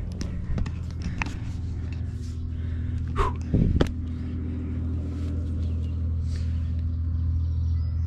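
Distant lobster boat engine churning: a steady low drone that grows slightly louder toward the end. A few knocks and scuffs cut across it, the loudest about three and a half seconds in.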